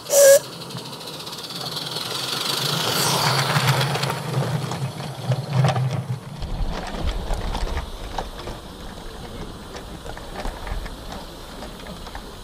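A 16mm-scale live-steam garden railway locomotive gives one short, loud whistle blast. Its working sound then builds up and fades again as the train runs along the line. From about six seconds in, a lower rolling rumble and clatter of small rail wagons on the track takes over.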